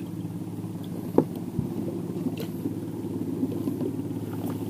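A small boat engine running steadily at a low, even speed, with a sharp knock about a second in.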